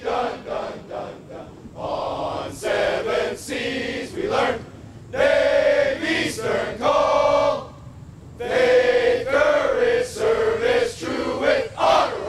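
A group of several dozen Navy sailors, men and women, singing together without accompaniment in held notes, in phrases a second or two long with short breaks between lines.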